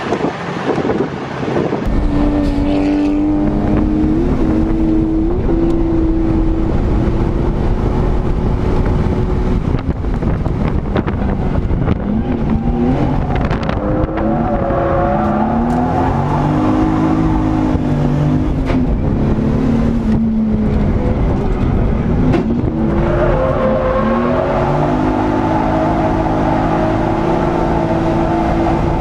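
Nissan 240SX (S13) drift car's engine heard from inside the cabin, revving hard on track, its pitch rising and falling again and again, loud from about two seconds in.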